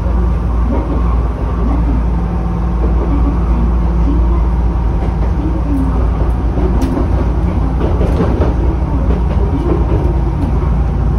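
Chichibu Railway 7500 series electric train running along the line, heard from on board: a steady low rumble of wheels on rail, with faint rising and falling tones from the running gear.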